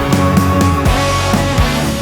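Rock background music with electric guitar and a steady drum beat.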